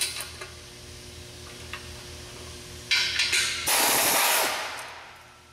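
Pneumatic tool on a red air hose tightening the exhaust flange bolts behind a catalytic converter. A few metal clinks at the start, short bursts about three seconds in, then a longer loud run that tapers off near the end.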